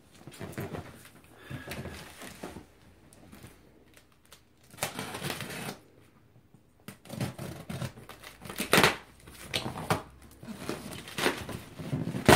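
A small knife cutting through the packing tape on a cardboard box: irregular scraping and rustling strokes of cardboard and tape, with a sharp, loud one about nine seconds in.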